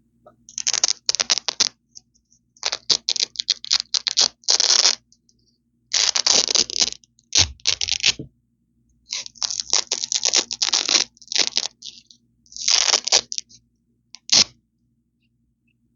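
Velcro hook-and-loop strips ripped apart close to the microphone: crunchy, crackly tearing in groups of quick rips with short pauses between, ending with one short rip.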